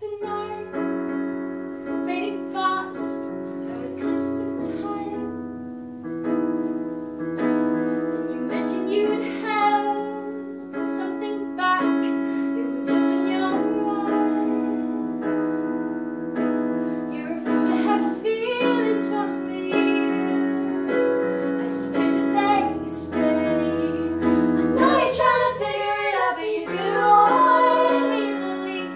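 A woman singing to her own chords on a digital piano. Toward the end two more women's voices join in harmony, and the music is at its loudest there.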